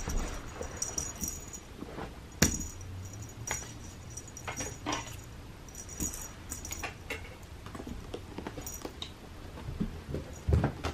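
Cats playing with a feathered string toy on a carpeted scratching ramp: scattered taps and soft scuffs of paws and toy on the carpet, with light jingles now and then. The strongest tap comes a couple of seconds in.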